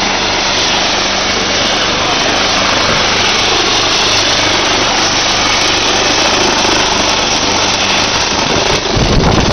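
Rescue helicopter running on the ground with its main rotor turning: a loud, steady turbine whine over a low hum. Near the end, wind starts buffeting the microphone as the rotor wash picks up.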